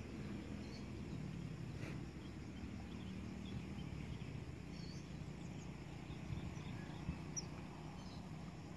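Faint, steady low rumble of a distant airliner on its takeoff run and climb-out, with scattered short high chirps over it.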